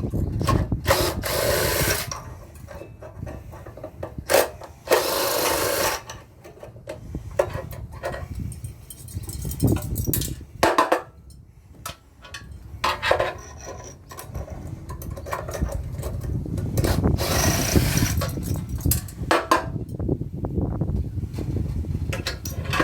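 Screws being undone from a metal floodlight housing as it is taken apart for scrap: several short stretches of grinding, scraping tool noise, with knocks and clicks of handling in between.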